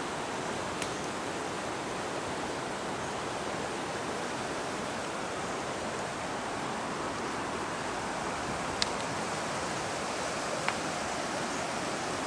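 A river running high and fast after heavy rain, its water rushing steadily through rapids. A few short clicks, the clearest near the end.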